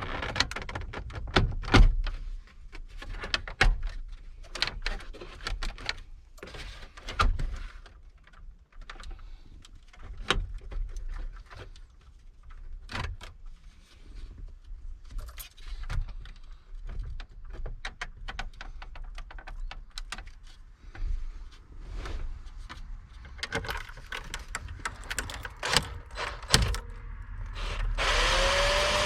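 Irregular clicks, taps and knocks from hands and tools handling parts inside a pickup's cab. A louder, denser rattling clatter comes near the end.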